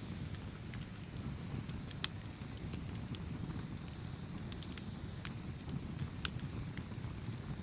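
Campfire burning with a steady low rumble and irregular sharp crackles and pops of burning wood, one pop sharper than the rest about two seconds in.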